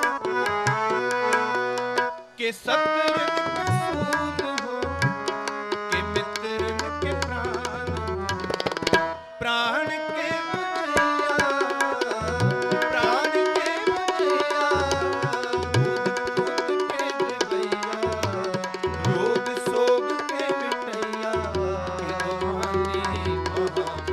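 Harmonium and tabla playing Sikh kirtan: sustained harmonium notes under quick tabla strokes, with the bass drum booming in bursts. The music drops away briefly twice, about two and nine seconds in.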